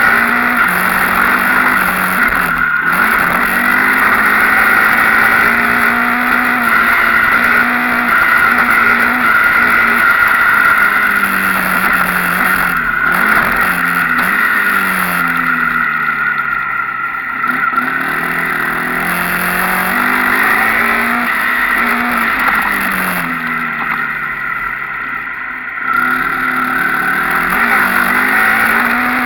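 Enduro dirt bike engine under hard riding, revs climbing and falling with each throttle opening and shift. Twice the pitch sinks for a couple of seconds as the throttle is rolled off, then picks up again.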